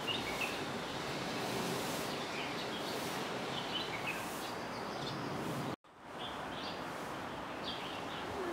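Small birds chirping in short, scattered calls over a steady outdoor background noise. The sound drops out for a moment about six seconds in and then resumes.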